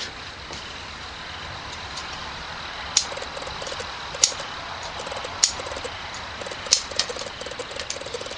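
Sharp clicks at an even pace, about one every 1.25 s, over a steady hiss: the robotic pumpkin's relay and ASCO solenoid valve switching on and off.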